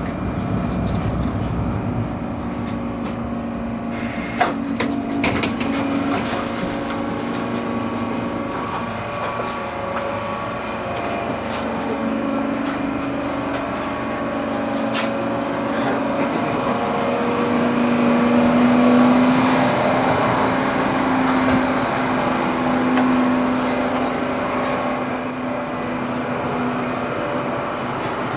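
Oslo tram heard from inside as it comes into a stop: a steady electrical hum from the tram, with a few clicks and knocks, and a short high-pitched beep about 25 seconds in.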